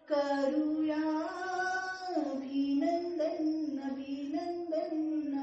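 A woman singing a song unaccompanied, a slow melody of held notes stepping up and down.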